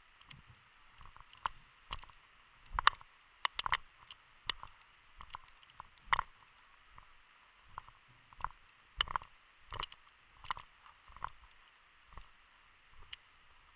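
Footsteps and brush rustling as a person walks through tall dry grass and scrub, with irregular knocks and clicks of carried gear. The sound is muffled, with the loudest knock about three seconds in and a cluster of quick clicks just after.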